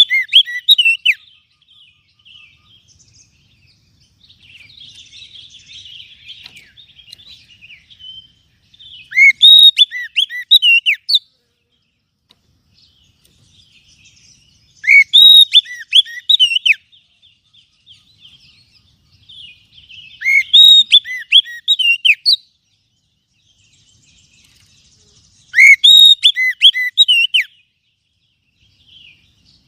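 Oriental magpie-robin (kacer) singing: loud phrases of rapid, looping whistled notes about two seconds long, repeated every five to six seconds, with softer scratchy twittering between them.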